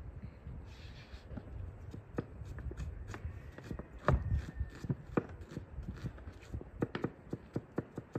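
Kitchen knife chopping onion on a thick wooden chopping board: quick, uneven knocks of the blade against the wood. About four seconds in, a heavier dull thud as dough is turned out of an enamel bowl onto a wooden board.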